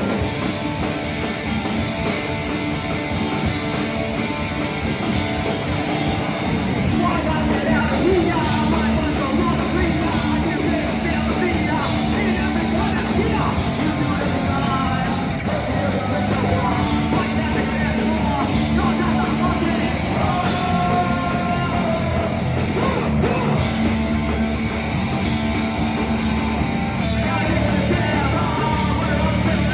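Loud rock music with singing over a steady beat.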